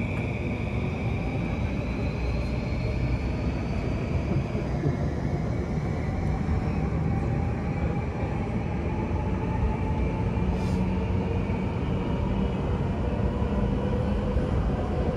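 JR Yamanote Line electric commuter train running on the rails: a steady rumble with a thin electric motor whine that slowly rises in pitch as the train gathers speed. One whine tone steps down about five seconds in.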